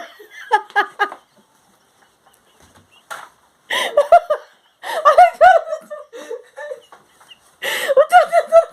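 People laughing hard in three bursts of high-pitched, cackling laughter, with short quiet gaps between them.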